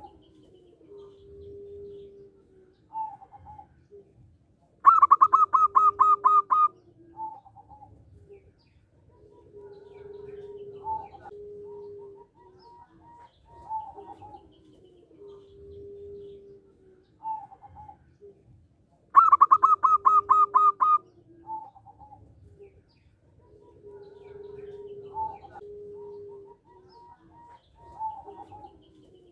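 Zebra dove (perkutut) singing. Soft low coos and short higher notes repeat throughout, and twice, about five seconds in and again about two-thirds through, a loud fast run of notes lasts about two seconds.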